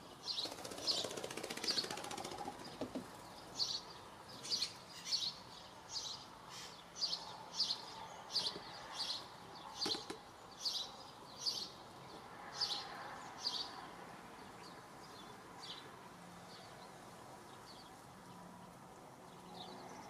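Eurasian collared dove bathing, flicking its wings in shallow water: a run of short splashing flutters, one or two a second, growing fainter and sparser after about fourteen seconds.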